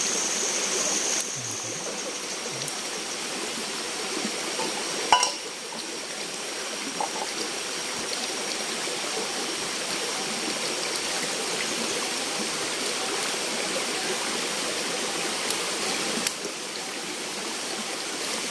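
Running water of a forest stream rushing steadily, with the sound cutting abruptly a few times and a sharp click about five seconds in.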